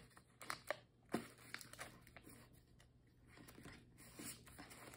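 Sheet of paper being folded into a paper airplane: faint, scattered crinkles and taps as the paper is handled and creased.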